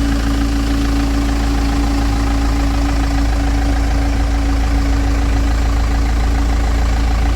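Van engine running steadily: a constant loud, low hum with an unchanging tone over it.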